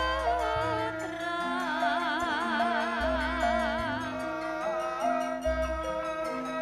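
Music: a melody with a strong, wavering vibrato over held bass notes that change about once a second, with light, steady percussion.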